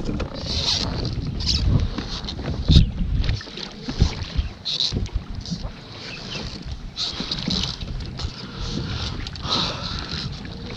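Water splashing and slapping around a kayak in irregular bursts, over wind rumbling on the microphone, heaviest in the first few seconds.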